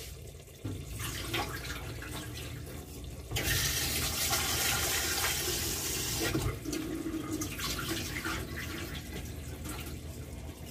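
Water from a kitchen tap running into a small steel bowl in a steel sink. A strong, steady rush starts about a third of the way in and lasts about three seconds, with quieter splashing around it.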